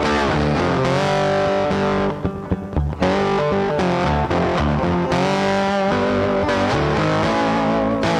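Background music: distorted electric guitar over bass, with notes that bend in pitch.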